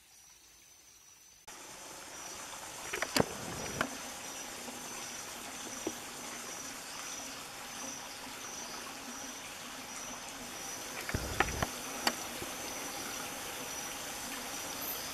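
Forest ambience: an insect's pulsing high-pitched trill over a steady hiss, with a few sharp cracks and snaps about three seconds in and again around eleven to twelve seconds.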